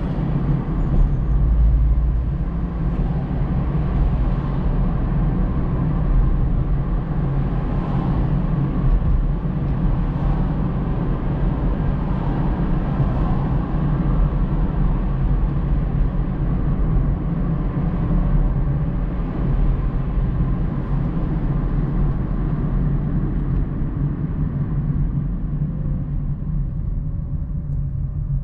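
Steady road noise of a car driving, heard from inside the cabin: low engine and tyre rumble with tyre hiss above it, the hiss thinning near the end as the car slows behind traffic.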